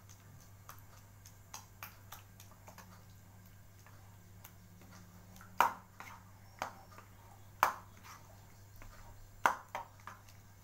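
Wok of thick chili sambal cooking and being stirred: scattered small clicks, then three sharp, louder pops about two seconds apart in the second half, over a steady low hum.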